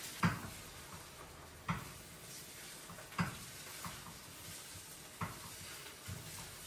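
Food sizzling in a pan, with a utensil knocking against the pan six times at uneven intervals over a steady hiss.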